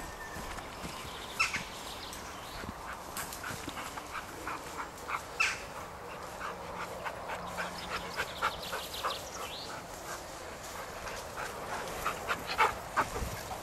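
Rhodesian ridgebacks giving short, excited yelps and whimpers while hunting for rabbits, coming quickly one after another in runs through the middle and again near the end.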